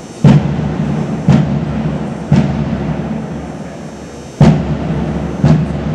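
Bass drum of a drum and bugle band struck five times, about one beat a second with a longer gap after the third, each stroke ringing on low.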